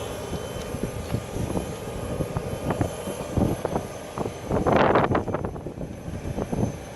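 Aircraft engine drone with a rumbling, buffeting noise and a louder surge about five seconds in.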